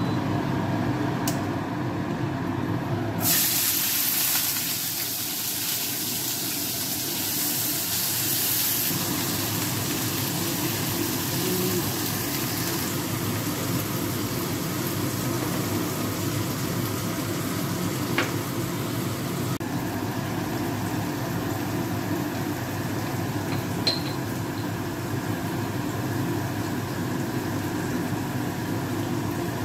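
Vegetables frying in hot oil in a nonstick frying pan: a loud sizzle starts suddenly about three seconds in, eases after several seconds, and a softer steady sizzle goes on over a steady hum.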